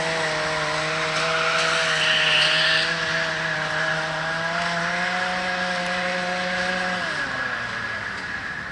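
Racetrack lure motor running at a steady pitch as it pulls the lure ahead of the dogs, then slowing, its pitch falling, about seven seconds in.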